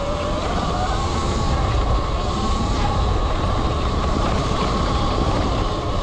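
Electric dirt bike under way: a steady whine from the electric motor, its pitch wavering slightly with speed, over a heavy low rumble of wind buffeting the microphone.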